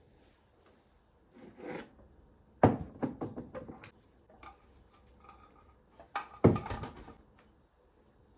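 Objects being handled and set down: two sharp knocks, one a little over two and a half seconds in and one about six and a half seconds in, each followed by a short run of lighter clicks and clatter, with a soft swish shortly before the first knock.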